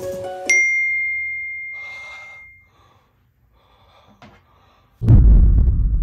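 Music cuts off and a single bright ding rings out, fading away over about two seconds. After a few faint sounds, a sudden loud deep boom hits about five seconds in.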